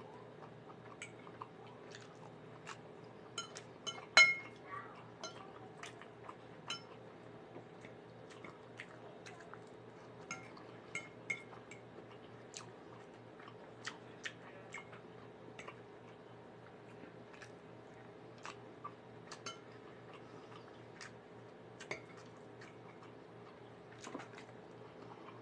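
A metal fork clinking and scraping against a dinner plate while someone chews food, in scattered sharp taps, the loudest clink about four seconds in. A faint steady hum runs underneath.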